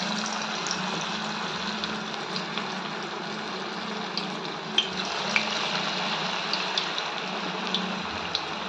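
Bonda batter deep-frying in hot oil in a steel kadai: a steady sizzle with scattered small pops.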